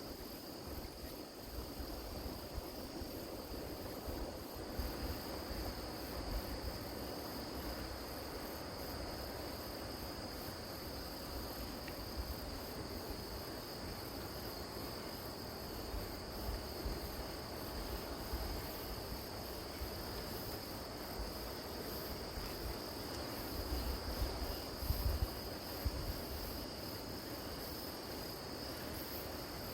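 Grass insects (crickets) chirping in a steady, continuous high trill, over a low rumble that swells briefly about three-quarters of the way through.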